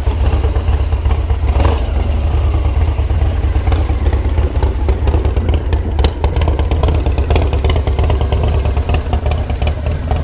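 1999 Harley-Davidson Dyna Super Glide's carbureted Twin Cam 88 V-twin running at a steady idle, with a loud, even exhaust note.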